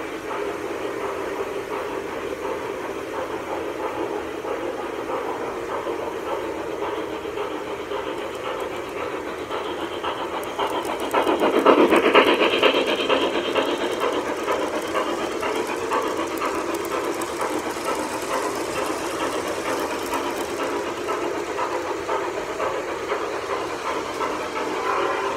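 Lionel O-scale model steam locomotive and its train running on floor track: a steady rumble of wheels on rail. It swells loudest as the engine passes right by about 12 seconds in, then settles back.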